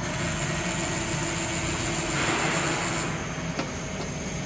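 Padovani Labor E CNC lathe running: a steady machine hum with a high whine that drops slightly about three seconds in, a swell of noise in the middle, and two short clicks near the end.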